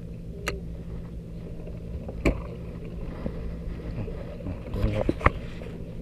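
Fishing boat's engine idling steadily, with a few sharp clicks about half a second, two seconds and five seconds in.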